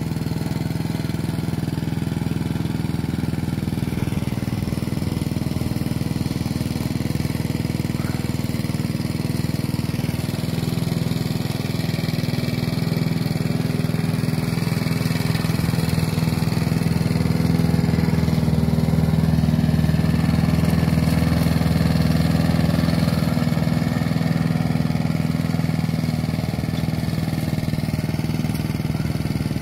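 Walk-behind push mower's small engine running steadily while it mows grass, growing a little louder partway through.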